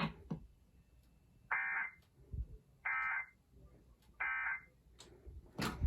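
Emergency Alert System end-of-message code: three short, harsh, buzzing data bursts about a second apart, marking the end of the alert. A brief noise follows near the end.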